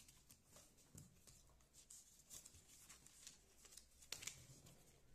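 Faint, scattered rustles and light ticks of paper being handled, from a shoe maker working with paper sneaker-pattern pieces.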